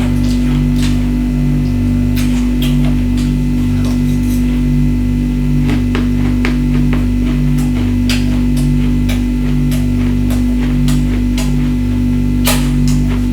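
Ice being bitten and crunched, in many short sharp crunches throughout, over background music with a steady low drone and a repeating bass pattern.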